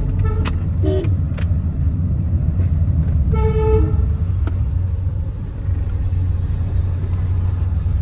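Steady low engine and road rumble inside a moving car's cabin, with a horn tooting once for about half a second a little past three seconds in and a few sharp clicks.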